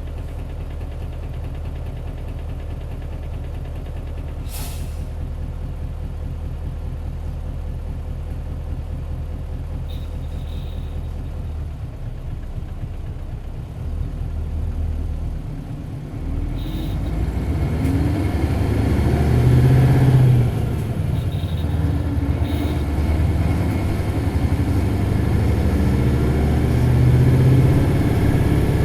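Isuzu Cubic bus's 8PE1-S V8 diesel idling steadily, with a short air hiss about four and a half seconds in. About sixteen seconds in the engine revs up as the bus pulls away, rising in pitch, dropping briefly near twenty seconds at a gear change, then climbing again.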